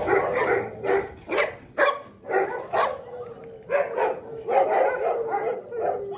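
Several kennelled dogs barking repeatedly, overlapping at about two barks a second, with a long steady whine held under the barks in the second half.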